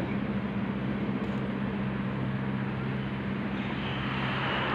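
A steady low machine hum over a constant hiss, the hiss growing a little louder near the end.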